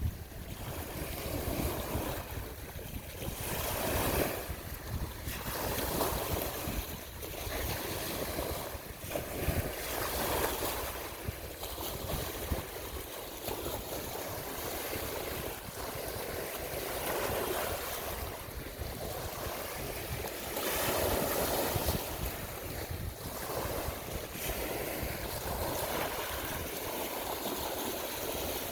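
Rushing water and wind, swelling and easing every second or two, with low rumbling wind noise on the microphone.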